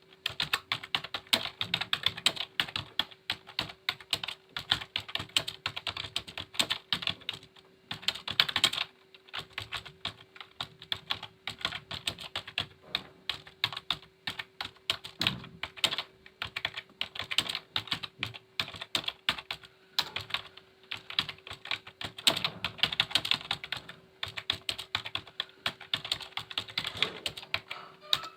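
Computer keyboard typing at a steady test pace of about 41 words a minute: a dense, continuous stream of keystrokes with a few brief pauses, over a faint steady hum.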